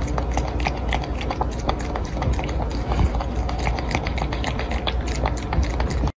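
A cat lapping water from a clear bowl right at the microphone: a fast, irregular run of wet clicks from its tongue, several a second, over a low steady rumble.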